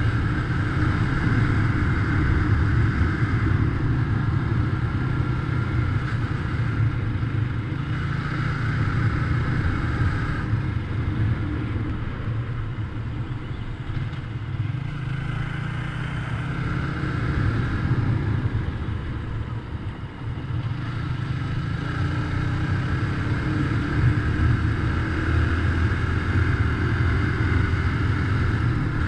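Motorcycle engine running while riding along, with a steady rumble and road noise. It eases off briefly about twenty seconds in, then picks up again.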